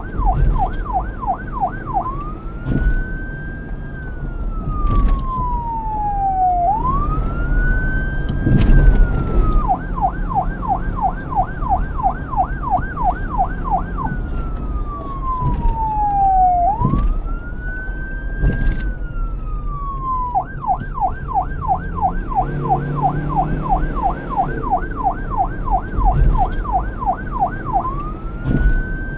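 Police car siren switching back and forth between a fast yelp, about three rises and falls a second, and a slow wail that climbs, holds, then falls over a few seconds, with a low rumble underneath.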